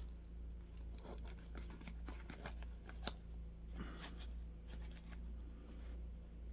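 Leather work gloves rustling and scuffing while handling and flexing a rubber RC truck tire, with scattered small clicks, over a steady low hum.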